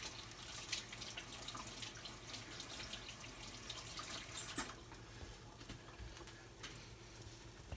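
Kitchen tap running faintly while hands are washed under it, water splashing in the sink. The splashing stops a little over halfway through.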